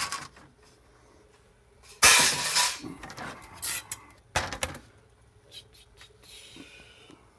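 Metal parts from a dismantled server being handled and set down on a work surface: a loud clatter about two seconds in, another sharp knock about four and a half seconds in, with smaller clicks between.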